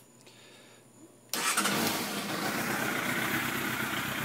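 Yamaha YZF600R's inline-four engine starting about a second in, then running steadily at idle.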